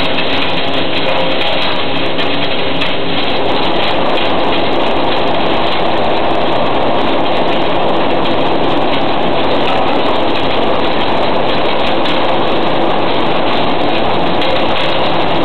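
Glass bottle crusher running while bottles are fed in and smashed: a loud, continuous clattering crunch of breaking glass over the machine's steady motor hum, which is clearest in the first few seconds.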